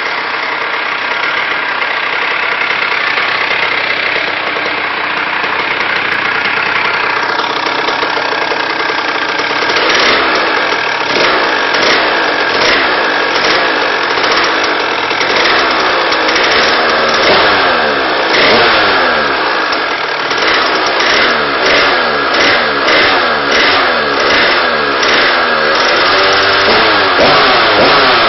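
HM Derapage motorcycle engine running while its carburation is being tested: a fairly steady idle for about the first ten seconds, then repeated throttle blips, the revs rising and falling again and again.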